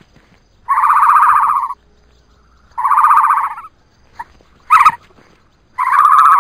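An animal's calls: three long buzzy calls of about a second each, with a short sharp call between the second and third.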